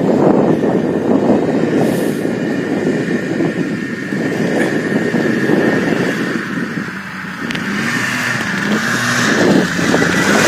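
Snowmobile engine running under way, easing off briefly about seven seconds in and then revving up again with a rising, wavering pitch.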